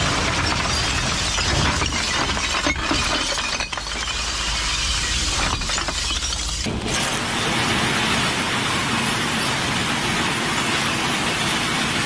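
Glass bottles clattering, clinking and shattering against each other in a dense, continuous crunch of breaking glass. About seven seconds in it changes to a steadier, hissing clatter of broken glass.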